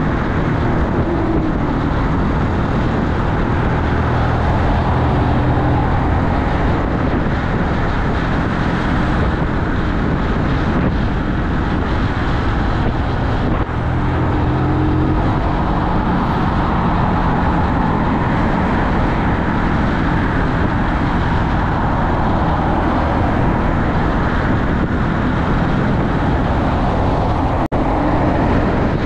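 Keeway Superlight 125 cruiser motorbike riding at steady road speed: the engine runs evenly under a steady rush of wind and road noise, shifting slightly in pitch along the way. The sound cuts out for an instant near the end.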